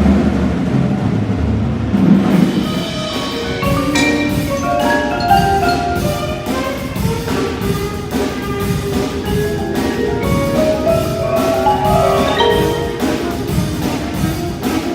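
Marching band show music: mallet percussion such as marimba and xylophone plays quick runs of short notes over a steady drum beat.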